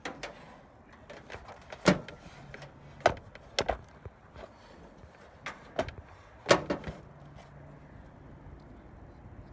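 A series of sharp mechanical clunks and clicks, about seven spread over several seconds, two of them followed by a brief low hum.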